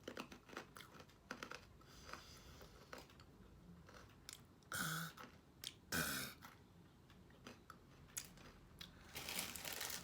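A person chewing crunchy bite-sized toast crackers, with many small crunching crackles throughout. Two louder, brief sounds come about five and six seconds in.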